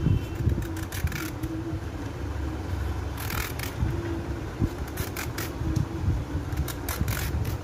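Hand vegetable peeler scraping the skin and ridges off a ridge gourd in short runs of quick strokes, several times over, above a steady low rumble.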